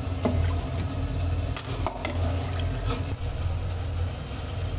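A ladle stirring chicken curry with water in a large metal pot: wet sloshing of the gravy and a few sharp knocks of the ladle against the pot, over a steady low hum.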